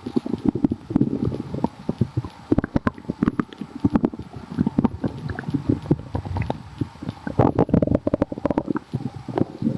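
Human stomach growling and gurgling: a continuous run of small irregular pops and bubbling clicks over a low rumble, thickest near the end.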